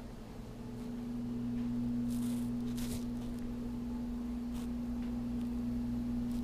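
Steady low electrical hum, one even tone with a weaker one an octave below, with two brief soft rustles about two and three seconds in.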